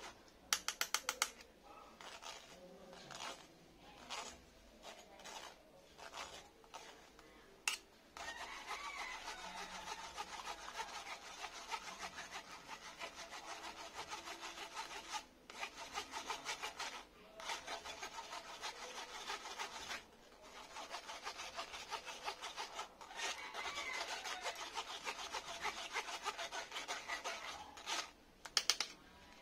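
A metal spoon scraping beaten egg through a fine stainless-steel mesh sieve to strain it. It goes in long runs of quick, even strokes, broken by a few short pauses.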